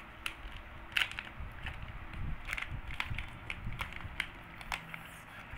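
Plastic sachet of powdered coconut milk being handled, crinkling with irregular small crackles and clicks.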